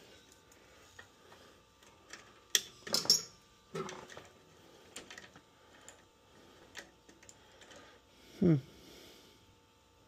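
Light clicks and rattles of furnace control wires and their crimped spade terminals being handled, with a sharper cluster of clicks about three seconds in. A brief hum from a person's voice comes near the end.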